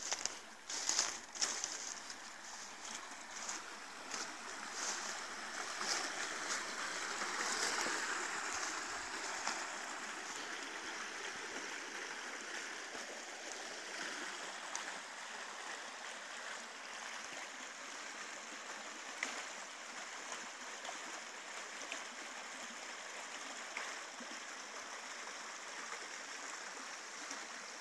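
Small woodland stream rippling and gurgling over stones and leaf debris, a steady rush of running water. During the first several seconds there are scattered crunches of footsteps in dry fallen leaves.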